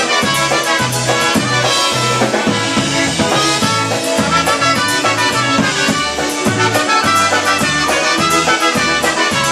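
Live polka band playing: concertina and piano accordion carry the tune over electric bass and drum kit, with a bouncing oom-pah bass line of about two notes a second.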